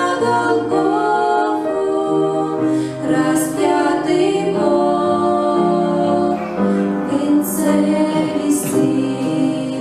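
Voices singing a song with instrumental accompaniment.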